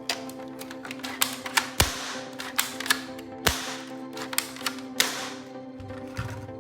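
Rapid sharp clicks and snaps of plastic toy-gun parts being handled, the loudest three about a second and a half apart, over background music.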